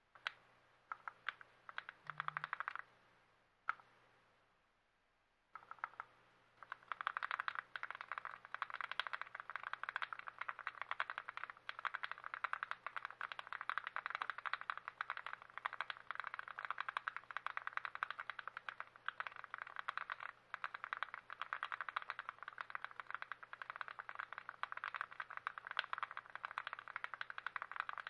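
Keys of a TX66 custom mechanical keyboard being typed on rapidly, a continuous clatter of keystrokes from about six seconds in, after a few brief bursts of clicks at the start.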